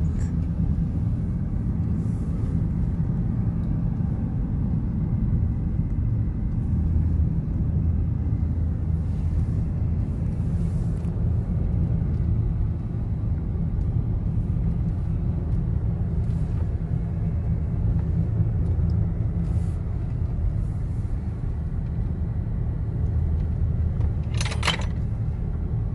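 Steady low road and engine rumble heard inside the cabin of a moving car. A short hiss-like noise comes near the end.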